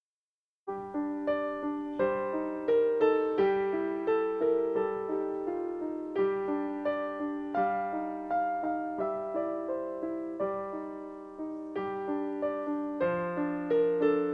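Piano playing chords and a melody line, with one struck note after another fading away. It cuts in abruptly under a second in.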